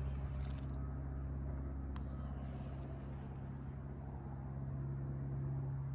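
A steady low hum, even and unchanging, with one faint click about two seconds in.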